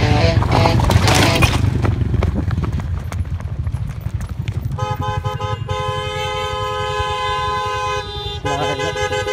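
Motorcycle engine running with wind and gravel noise. About five seconds in, a vehicle horn starts sounding in long steady blasts with short breaks.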